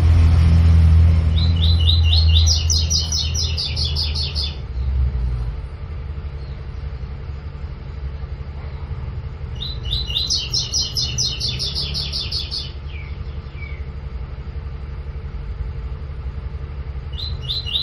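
Double-collared seedeater (coleiro) singing its 'tui tui' training song: two phrases of rapid, evenly repeated high notes, each about three seconds long and several seconds apart, with a third phrase starting just at the end. A steady low rumble runs underneath and is loudest in the first few seconds.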